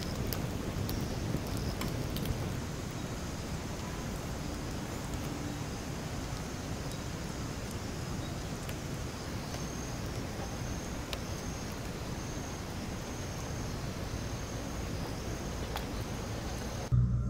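Steady outdoor rushing noise, heaviest in the low range, with faint high chirps repeating about once a second in the second half. Near the end it cuts suddenly to a much louder low steady hum.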